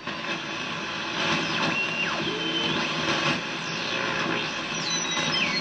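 BC-474 receiver's speaker playing the 80-metre ham band in CW mode: a wash of band noise and static with garbled sideband stations and beat whistles that slide and step in pitch. It comes up suddenly at the start as the volume is turned up.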